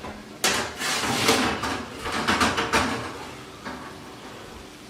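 Oven door opening and a pizza pan being pulled out over the metal oven rack: a run of scraping and clattering metal for about two and a half seconds, then a single click about four seconds in.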